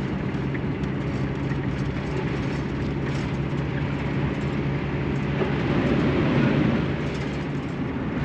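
Cabin noise of a motorhome driving on a wet road: steady engine drone with tyre and road noise, swelling a little louder a little past the middle.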